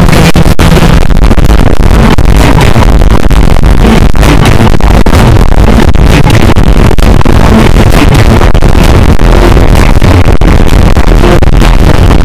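Fireworks show soundtrack played through nearby loudspeakers, so bass-heavy and loud that it overloads the recorder into constant clipped distortion.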